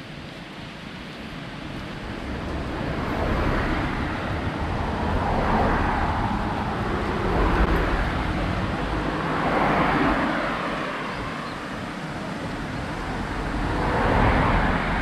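Road traffic: several cars and a van passing close by one after another, the tyre and engine noise of each swelling up and fading away, about five passes in all, over a steady low rumble.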